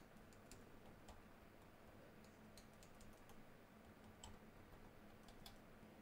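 Near silence, with faint scattered clicks from hands pressing along a laptop keyboard as it is seated back into the ThinkPad P52, over a low steady hum.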